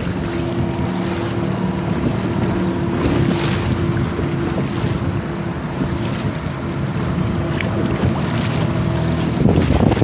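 A small 5 hp outboard motor running steadily as the boat moves through choppy water, with wind buffeting the microphone and water splashing against the hull.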